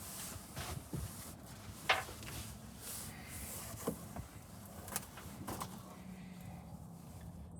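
Scattered sharp clicks and knocks of tools and metal parts being handled, about five or six separate hits, the loudest about two seconds in, over a faint steady hum.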